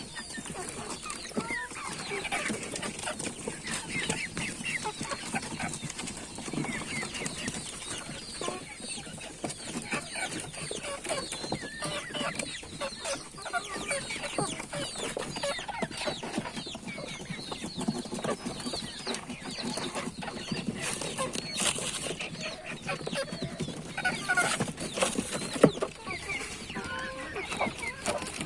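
A flock of native (deshi) chickens clucking, many short calls overlapping without a break, with one sudden louder sound about three-quarters of the way through.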